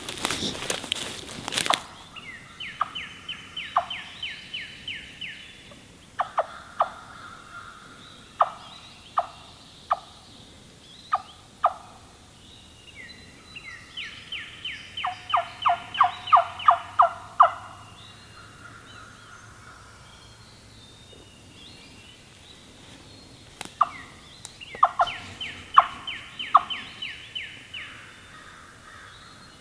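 Wild-turkey sounds: three runs of rapid, evenly spaced notes, each about three seconds long, near the start, in the middle and near the end, with single sharp notes scattered between. A loud rustling noise fills the first two seconds.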